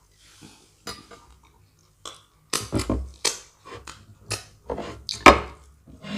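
Tableware clinking and knocking at a meal: a string of short, sharp clicks and knocks from dishes, cutlery and glass, the loudest about five seconds in.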